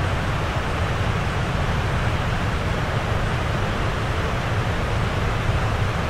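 Steady roar of falling water, a dense even hiss over a deep low rumble, with no breaks or changes.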